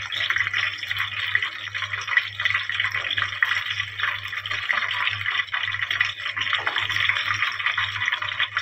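Hot oil sizzling and crackling steadily around breadcrumb-coated chicken pieces deep-frying in a kadai, on their first fry. A low steady hum sits underneath.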